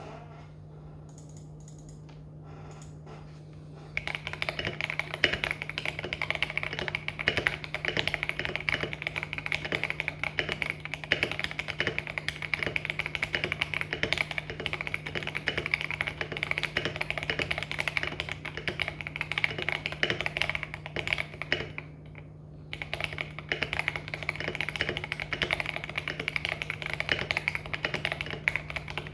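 Fast, continuous typing on an Akko Mod001 mechanical keyboard, the keystrokes starting about four seconds in and pausing briefly about three-quarters of the way through. A steady low hum runs underneath.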